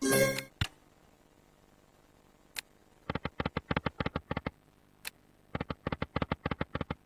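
EGT Clover Link Xtreme slot machine sounds: a short win chime dying away at the start, then a click and two runs of rapid ticking, about ten ticks a second, as the reels spin and stop.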